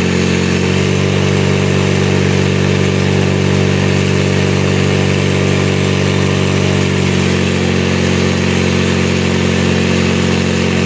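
Portable fire pump engine running steadily at high revs under load, feeding water to two hose lines, with a steady hiss above the engine note.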